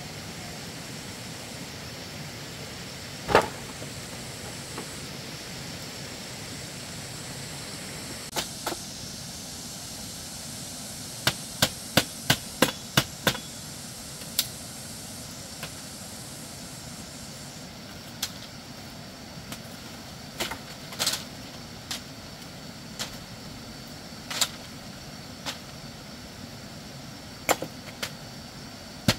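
Sharp wooden knocks of bamboo poles and panels being handled and struck. There is a single knock about three seconds in and a quick run of about seven blows near the middle, then scattered knocks, all over a steady background hiss.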